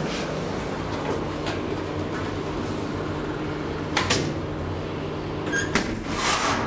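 1974 DEVE hydraulic elevator running: its machinery hums steadily while the car travels, with a sharp click about four seconds in. The hum cuts off near the end as the car stops at the landing.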